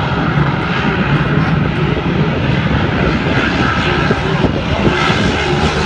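Engines of two Grand Prix hydroplanes racing at full speed, a loud, steady drone that runs on without a break.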